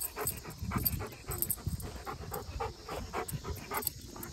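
Dog panting in quick, even breaths, about three to four a second, worked up from playing fetch.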